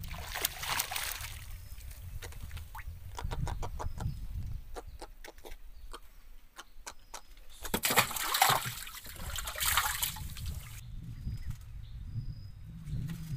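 Water splashing in two hissing bursts, one right at the start and a longer, louder one about eight seconds in, with a quick run of sharp clicks in between, as a handline is jerked over the side of a wooden boat to snag fish. Wind rumbles on the microphone throughout.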